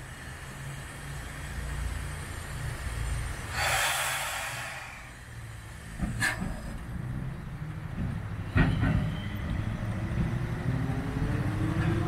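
Steam rack locomotive and train running, with a steady low rumble. A short loud hiss comes about four seconds in, two sharp knocks follow, and a rising tone sounds over the last few seconds.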